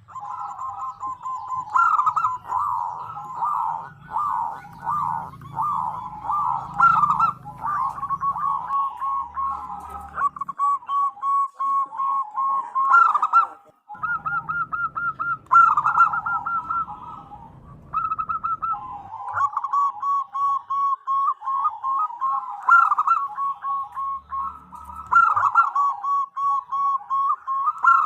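Zebra dove (perkutut) calling, presented as a female calling for a male. It gives long runs of rapid, warbling cooing notes with a brief break about halfway through.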